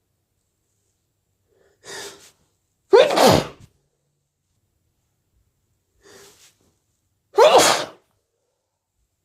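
A person sneezing loudly twice, about four and a half seconds apart. Each sneeze is preceded by a short, quieter in-breath.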